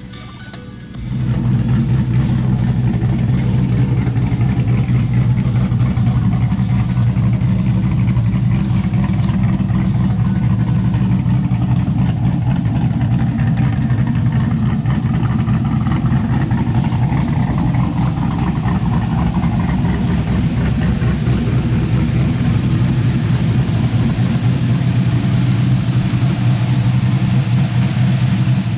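LS V8 engine of a Chevy C10 pickup running steadily with a deep, even rumble that cuts in suddenly about a second in.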